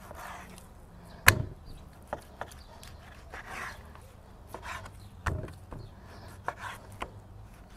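Kitchen knife cutting raw beef into large chunks on a wooden cutting board: soft slicing and scraping with a few knocks on the board, the loudest about a second in and another about five seconds in.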